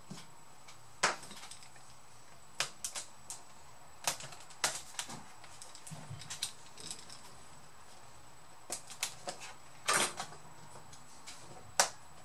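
Plastic keyboard latches of a Dell Vostro 3550 laptop clicking and snapping as they are pried with a plastic pry tool and a screwdriver, with keys clattering. The clicks are irregular, the loudest about a second in and again around ten seconds.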